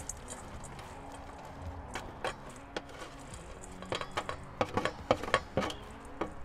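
Roasted potato cubes scraped off a metal sheet pan into a stainless steel bowl with a slotted spatula: scattered clinks and scrapes, thickening into a quick run of knocks about four seconds in.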